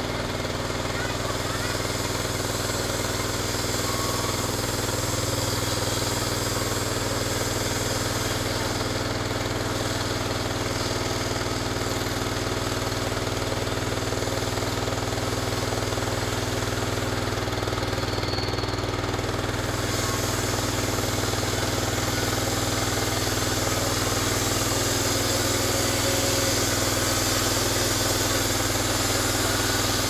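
Norwood LM29 band sawmill's engine running steadily at an even pitch while the band blade cuts along a log.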